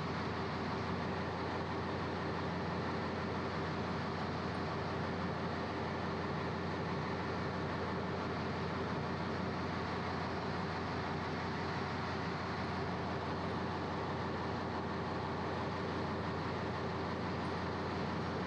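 Ship's engine-room machinery running steadily: a constant drone with a steady hum, unchanging throughout.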